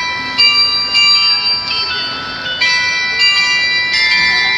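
Bells ringing a slow melody to mark one o'clock, about six notes at different pitches, each struck note ringing on under the next.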